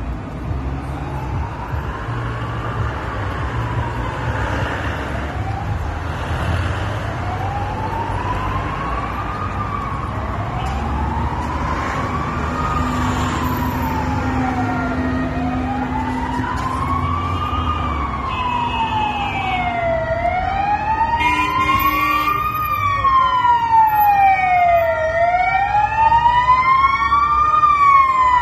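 Fire engine siren wailing, a slow rise and fall in pitch repeated every few seconds, growing louder as it approaches.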